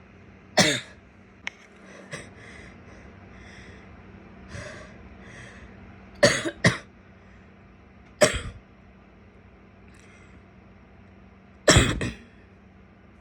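A woman coughing in short, separate fits: a single cough about half a second in, a quick pair about six seconds in, another single cough at about eight seconds, and two or three coughs close together near the end.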